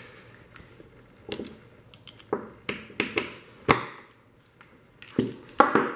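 Scattered clicks and knocks of tools and metal parts being handled on a workbench, about ten sharp taps at uneven intervals, several close together in the middle and near the end.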